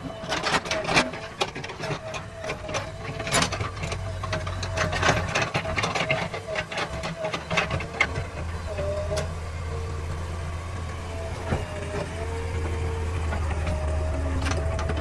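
JCB 3DX backhoe loader working: its diesel engine running with a whine that shifts in pitch, and frequent sharp knocks and scrapes from the bucket on soil and stones over the first half, after which the machine runs more steadily.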